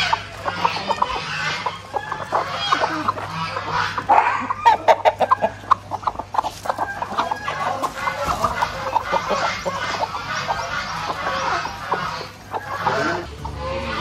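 A flock of chickens clucking, with many short calls overlapping. About five seconds in there is a quick run of sharp clicks, the loudest part.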